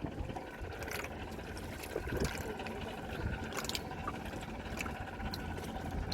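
Water sloshing and trickling against a small inflatable boat, a steady wash of sound with a few faint clicks.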